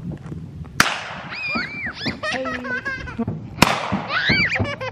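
Two gunshots about three seconds apart, sharp cracks that ring out briefly across the field, with high-pitched laughing voices between them.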